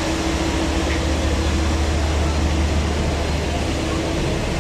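A passenger river launch's engine running steadily: a deep continuous hum with a fainter steady higher tone above it and an even rushing noise.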